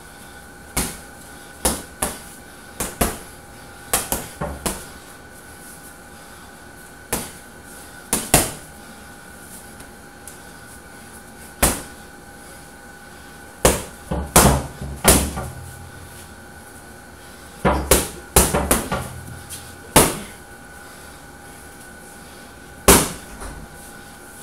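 Gloved punches landing on a hanging heavy punching bag: single sharp thumps a second or more apart, with two quick flurries of several punches in the middle and about three-quarters of the way through.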